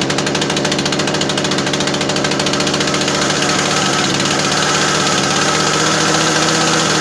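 Husqvarna 240 two-stroke chainsaw running steadily at a raised fast idle just after a cold start, warming up with the choke pushed in to its half position.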